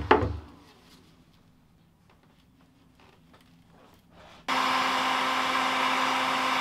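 Heat gun switches on about four and a half seconds in and runs with a steady blowing hum, heating old countertop laminate so it can be pried off the plywood. Before that, a sharp knock near the start, then near quiet with a few faint ticks.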